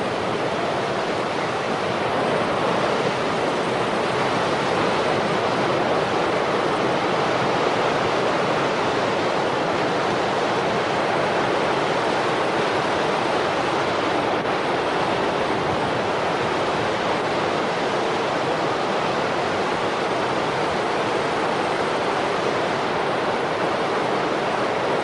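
Heavy surf: huge waves breaking against rocky cliffs, a steady, unbroken rush of crashing water and spray.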